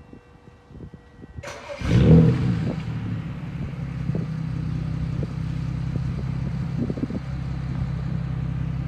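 Direct-injection inline car engine starting about a second and a half in, flaring briefly, then settling into a steady idle. New ignition coils have been fitted on misfiring cylinders 1, 3 and 5, and the owner considers the misfire cured.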